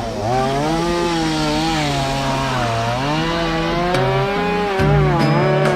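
An engine running at varying speed, its pitch rising and falling smoothly over a few seconds.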